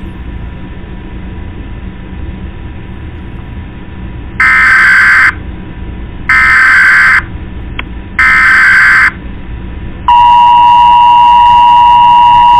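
Emergency Alert System tones: three short buzzy bursts of the digital header data, about a second apart, then the steady two-tone attention signal starting about ten seconds in. A muffled steady hiss lies under the first part.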